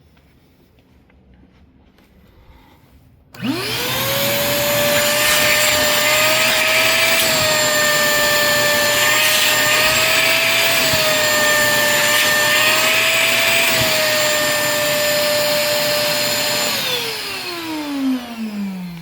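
Hyper Tough 1.5-gallon, 2-peak-horsepower wet/dry vacuum switched on about three seconds in. Its motor spins up within a fraction of a second to a steady high whine over rushing air, running with a dirty filter inside. About three seconds before the end it is switched off and winds down with a falling whine.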